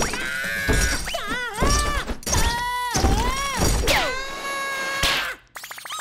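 Cartoon sound: a run of high, wordless squeals and yelps from an animated chick, broken by repeated thuds and whacks of cartoon impacts on a foosball table.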